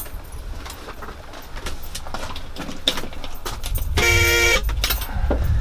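A single short vehicle-horn toot about four seconds in, lasting about half a second, over a low engine rumble and a few small clicks.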